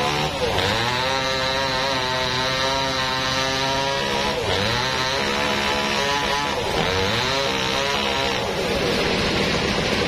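Gasoline chainsaw cutting into a large log, its engine bogging down and revving back up three times as the chain bites. Near the end the engine note fades under a steady rushing noise.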